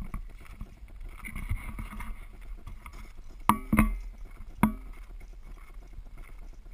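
Low wind rumble on an outdoor camera microphone, with three short, sharp knocks a little past halfway.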